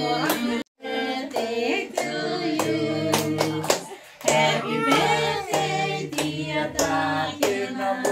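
A group of adults and children singing together, clapping along.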